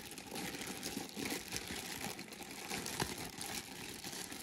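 Packing tape being peeled and pulled off a large hollow plastic toy dinosaur, a steady rustling and scraping with a sharp click about three seconds in.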